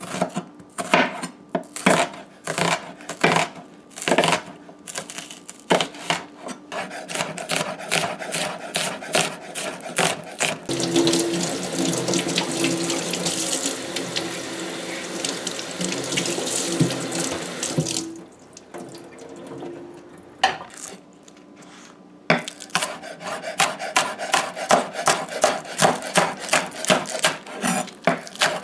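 A chef's knife chopping onion on a wooden cutting board. Then a kitchen tap runs steadily into a stainless-steel sink for several seconds while scallion is rinsed under it. After a short lull the knife chops scallion on the board in a fast, even rhythm.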